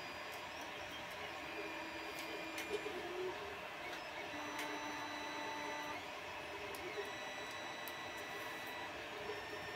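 Light clicks and taps from hands handling a 3D printer's plastic carriage parts and drive belt on its gantry rods. Under them is a steady background hiss with faint held tones that change pitch every second or two.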